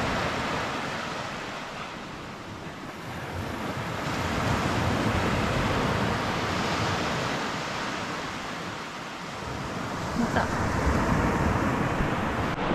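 Surf washing onto a beach: a steady rush of breaking waves that swells and eases about every five to six seconds.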